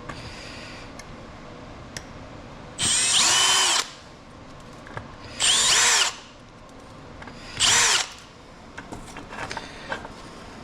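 Power drill fitted with a tiny Phillips screwdriver bit, run in three short bursts to back out tight little screws, the motor whining up and winding down each time. Small clicks and taps of handling come between the bursts.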